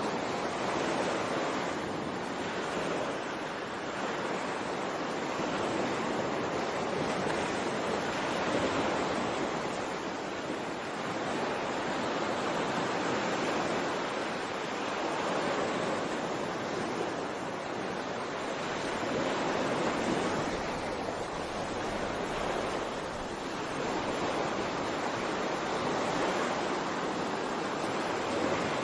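Water washing in waves: a steady rush that swells and eases gently every few seconds.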